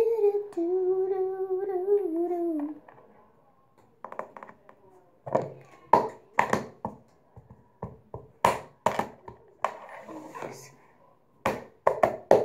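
A girl hums one long, slightly wavering note for about two and a half seconds. After a short pause, a run of sharp hand taps on the countertop comes in irregular clusters.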